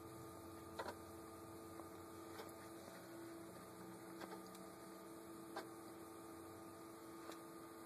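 Faint, light taps of a fingertip on a GPS tablet's touchscreen, about six clicks spaced irregularly a second or more apart, over a quiet steady hum.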